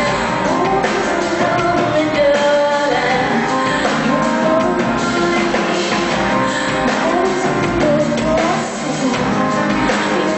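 A woman singing a rock song live over a full band.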